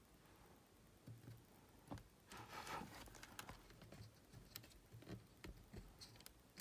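Near silence with a few faint small clicks and a brief soft rustle about two and a half seconds in: hands handling a cassette recorder's circuit board and a soldering iron.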